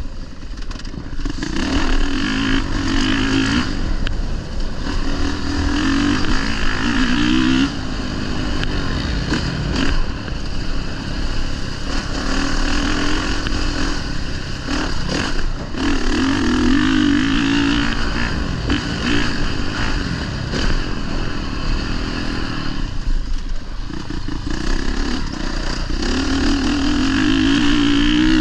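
Honda motocross bike's engine being ridden hard, revving up through the gears and backing off again and again, with brief dips in between.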